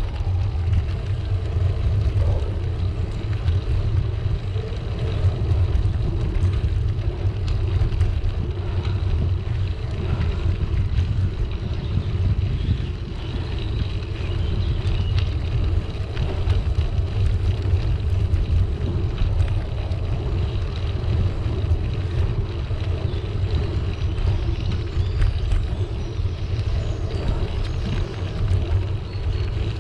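Steady low rumble of a bicycle riding on a tarmac path: road tyres rolling, with wind from the bike's own speed buffeting the camera microphone.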